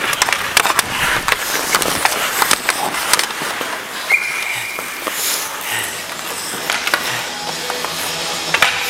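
Hockey skates scraping and cutting the ice, with sticks clacking against each other and the puck in a scramble in front of the net. A short, high referee's whistle blast about four seconds in stops play, and the clacking dies down after it.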